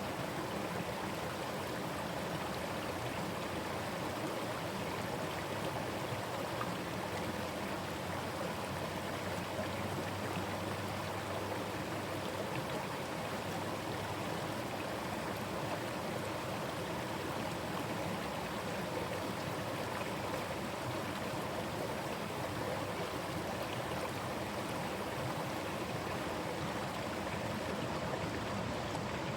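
Forest stream running over rocks, a steady rushing and burbling flow of water.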